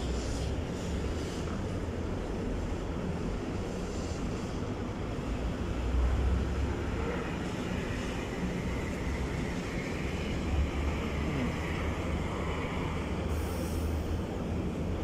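Mercedes-Benz Actros 2546 truck's V6 diesel engine running at low revs while reversing a loaded semi-trailer: a steady low rumble that swells briefly about six seconds in and again around ten seconds.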